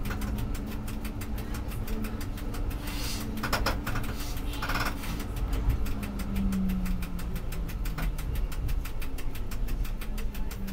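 Old tram running along street track: a steady hum from its electric drive over a constant low rumble of wheels on rail, with two short bursts of higher-pitched noise about three and a half and four and a half seconds in.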